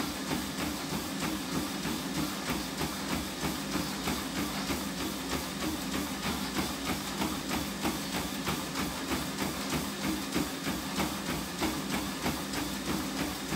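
Treadmill running: feet striking the moving belt in an even rhythm, about three footfalls a second, over the steady hum of the treadmill's motor and belt.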